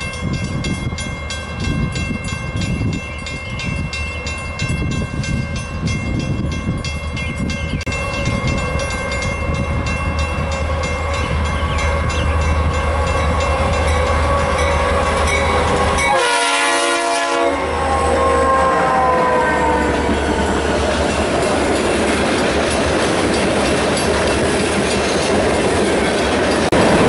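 Diesel freight train approaching and passing. The lead locomotive, BNSF 649 in Santa Fe warbonnet paint, sounds its horn, which slides down in pitch as it goes by, over the low throb of the diesel engines. The horn then gives way to the rolling rumble of the tank cars passing.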